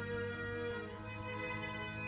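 String quintet with violins, cello and double bass playing, bowed notes held over a sustained bass line. One held upper note fades out near the end.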